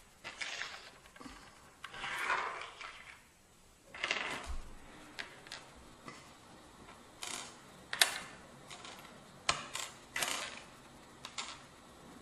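Small beads and buttons being picked up, slid and set down by hand on a wooden tabletop: irregular light clicks and short scrapes as they are sorted into groups.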